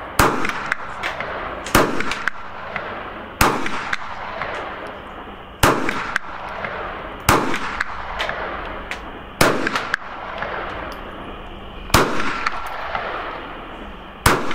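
Kel-Tec PMR-30 pistol firing .22 Magnum unsuppressed: eight single shots at an unhurried pace, one every one and a half to two and a half seconds. Each shot trails a long echo that dies away before the next.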